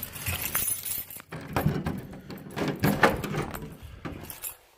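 Keys jangling and clinking at a door lock, with scattered clicks and a few louder knocks, the loudest about three seconds in, as the door is worked open.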